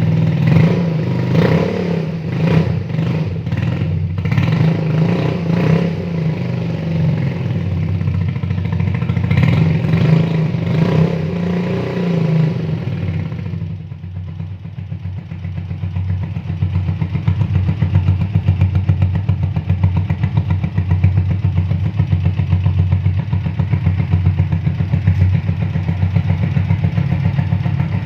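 Motorcycle engine running through a homemade 'turbo'-style exhaust, blipped a few times in the first half. About halfway through the sound abruptly thins out and settles into a steady, fast-pulsing run.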